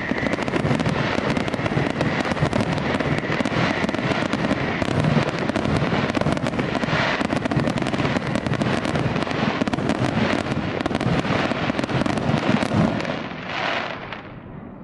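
Dense, rapid crackling of many fireworks and firecrackers going off together in a continuous barrage, dying away near the end after one last short burst.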